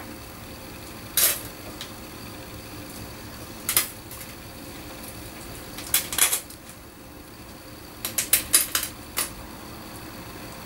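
A utensil clinking and scraping against a Thermomix mixing bowl as tomato paste is spooned in. There are single clinks about a second in and near four seconds, a double clink near six seconds, and a quick run of clinks about eight to nine seconds in.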